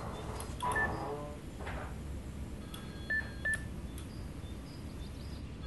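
Electronic beeps from a home environmental control and phone system: a short tone about a second in, then two short beeps at the same pitch in quick succession a little past the middle, over a low room hum.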